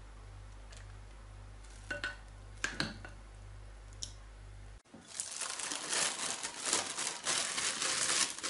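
A few light taps of a spoon as chocolate sauce is spooned into a plastic freezer bag, then, from about five seconds in, steady crinkling of the plastic bag as it is gathered up and handled.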